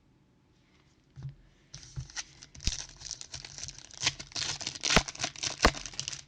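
A pack of football trading cards being torn open, its wrapper crinkling and crackling, starting about a second in, with a few sharp clicks among the crinkling.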